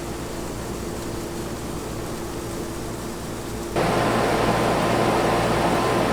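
Straw blower running steadily as straw is blown through pipes into the barn, a constant rushing machine noise with a low hum. About four seconds in it suddenly gets louder and hissier.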